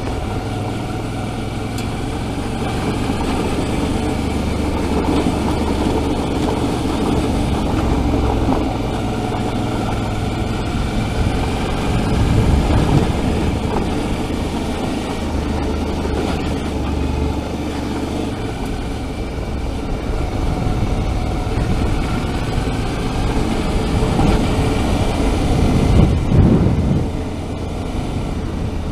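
Suzuki V-Strom 650's V-twin engine running steadily as the motorcycle rides over a gravel road, under a constant haze of tyre and wind noise. Two louder swells come about twelve seconds in and near the end.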